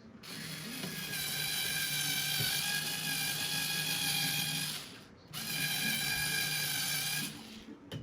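A small geared electric motor runs with a steady, high whine at constant pitch. It starts abruptly, runs about five seconds, pauses briefly, then runs about two seconds more and cuts off.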